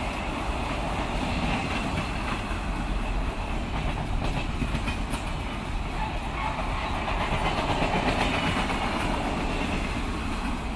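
A train passing by: a steady rumble of the cars rolling, with the clickety-clack of wheels over the rail joints. It grows slightly louder past the middle.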